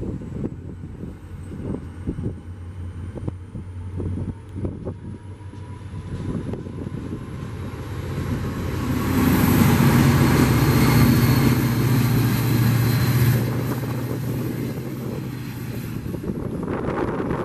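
New Jersey Transit diesel-hauled passenger train passing close along the platform. Its rumble and steady engine drone build to a loud peak about nine to thirteen seconds in, then ease off.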